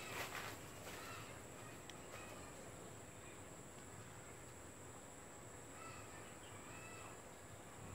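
Faint outdoor ambience: a steady high-pitched insect buzz, with a few faint, short bird chirps.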